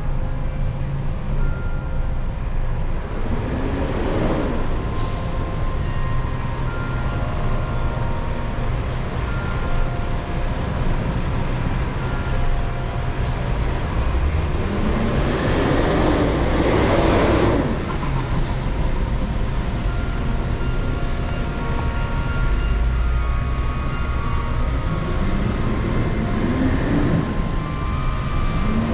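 Vehicle driving through city traffic on a wet street: a steady rumble of engine and tyres, with a pitched whine that rises three times as it accelerates. The middle rise, about halfway through, is the loudest and comes with a rushing hiss.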